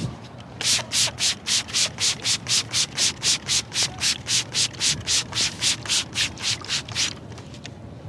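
Hand trigger spray bottle spritzing onto hair: a run of about two dozen quick hissing sprays, roughly four a second, that stops about a second before the end.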